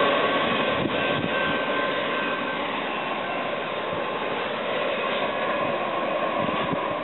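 Double-stack intermodal freight train rolling on the rails as its last cars pull away, a steady rumble that eases slightly in the first couple of seconds.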